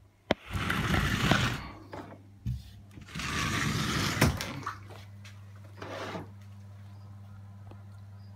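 Water splashing in two loud bursts as Cuvier's dwarf caimans lunge at food, with sharp knocks at the start and near the end of the splashing, and a steady low hum underneath once the water settles.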